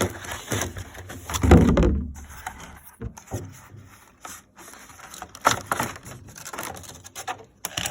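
Handling noise of the battery charger being worked out of its clear plastic packaging: irregular crinkles, clicks and knocks, with a louder bump about a second and a half in.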